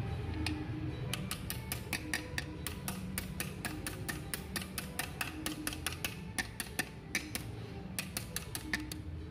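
A run of sharp, irregular clicks, about four a second, starting about a second in and stopping near the end, over a steady low hum.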